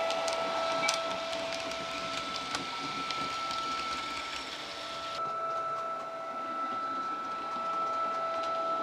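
Model of the City Airport Train running past with its factory DCC sound. A steady electric whine carries on throughout over the rattling mechanical running noise of the model and its coaches on the track, with small ticks from the wheels. The running rattle drops away suddenly about five seconds in while the whine continues.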